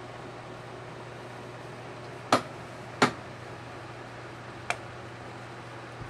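Three sharp plastic clicks and knocks as a plastic hand mirror and makeup items are picked up and handled: two loud ones close together about two seconds in, and a lighter one near the end. Under them runs the steady hum of a room fan on low.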